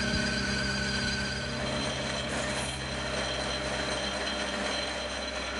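Small metal lathe running steadily while cutting a brass workpiece, its motor and gearing giving a constant hum.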